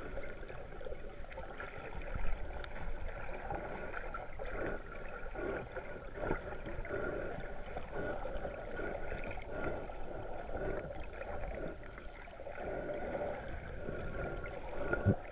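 Muffled water movement recorded by a submerged camera just below the surface: irregular sloshing with short, soft taps and swishes.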